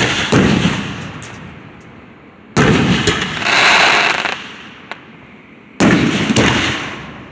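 Aerial fireworks shells bursting: sharp booms in three groups, a pair at the start, one about two and a half seconds in and another pair about six seconds in, each dying away slowly. Between them, a crackling glitter shell fizzes for about a second.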